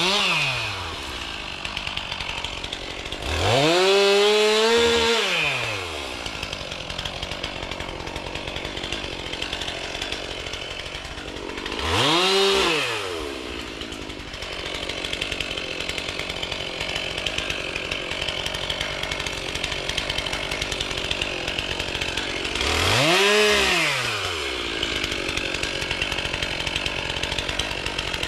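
Chainsaw idling, revved up three times, each rev climbing and falling back to idle within a second or two.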